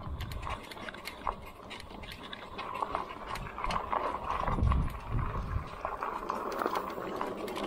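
Bike tyres rolling over a gravel trail, giving a run of irregular crunches and clicks. Low gusts of wind buffet the microphone, strongest about halfway through.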